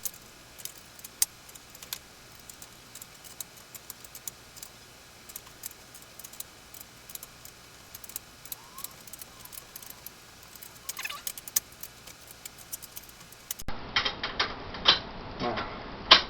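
Scattered light metallic clicks and clinks of small hardware being handled: a bolt, washer and nut being taken off and a shorter bolt fitted. The clicks grow louder and closer together near the end.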